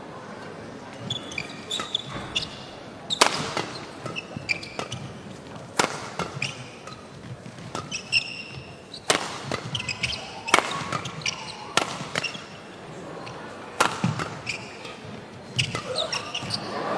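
Badminton doubles rally: rackets hitting a shuttlecock with sharp cracks every second or so, with short high squeaks of shoes on the court between shots, in a reverberant sports hall.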